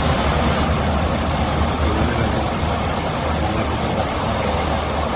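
Airliner cabin noise: a steady rushing roar with a strong low hum underneath, and a faint click about four seconds in.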